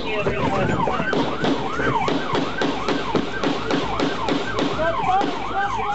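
Police car siren in a fast yelp, its pitch rising and falling about three times a second without a break.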